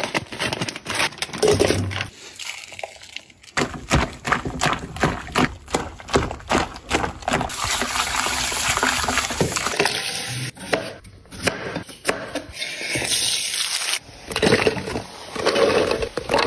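Kitchen prep sounds in quick succession: scissors snipping open a plastic bag, then tap water running into a metal bowl while chicken gizzards and livers are rinsed by hand, with many short clicks and knocks of handling throughout.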